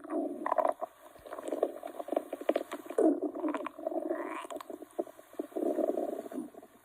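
Hungry stomach growling: a long low rumble broken up by rapid crackly gurgles, stopping shortly before the end.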